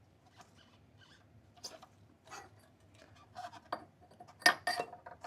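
Scattered light metallic clinks and scrapes of motorcycle front-end parts being handled, with a loud cluster of sharp clinks about four and a half seconds in.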